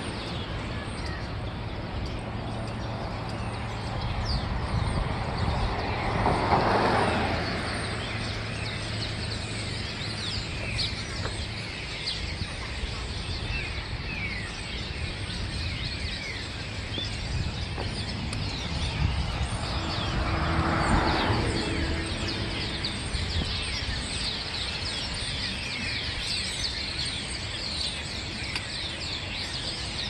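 A large flock of small birds perched on overhead power lines, calling all together in a steady stream of short chirps that grows denser later on. Two vehicles pass, swelling and fading, about six seconds in and again about twenty seconds in.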